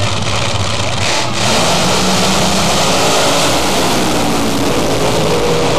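Nitro-burning drag racing engines running at full power, a loud, dense engine sound that dips briefly about a second in and then swells and holds steady.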